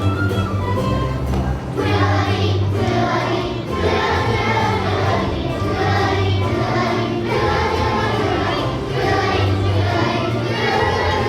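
Children's choir singing a song over instrumental accompaniment. The voices come in about two seconds in, in short repeated phrases.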